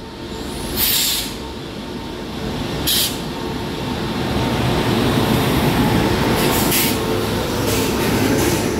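Indian Railways electric locomotive and its coaches rolling slowly past, the rumble of wheels on the rails growing louder as it comes alongside. A faint steady hum runs under it, and there are two short hisses about one and three seconds in.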